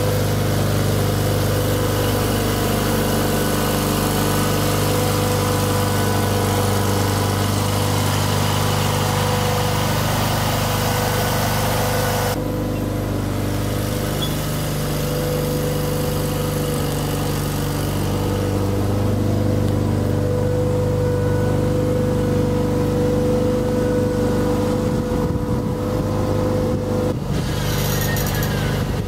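Lawn and garden tractor engine running steadily while towing a loaded dump cart.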